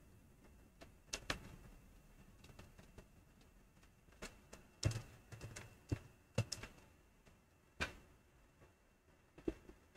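Soft, irregular clicks and taps of a computer keyboard and mouse during text editing, about a dozen strokes, most of them bunched in the middle.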